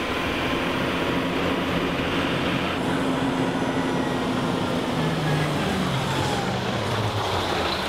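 A fire engine's diesel engine running as the truck drives up and slows, its note dropping about five seconds in, over a steady rushing noise.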